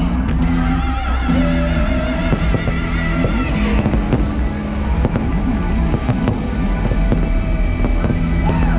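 Fireworks going off over loud show music: repeated bangs and pops scattered through sustained musical notes and a wavering high melody.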